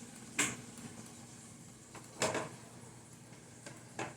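Light handling sounds of hard plastic toy parts: a click about half a second in, another about two seconds in, and a fainter tap near the end.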